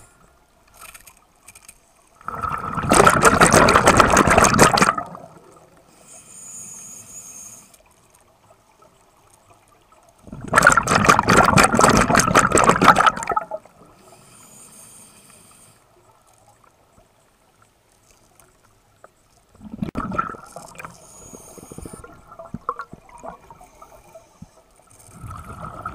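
Scuba regulator exhaust bubbles heard underwater: long bubbling bursts as the diver breathes out, about every eight seconds, with a faint regulator hiss in the quiet gaps between them as the diver breathes in.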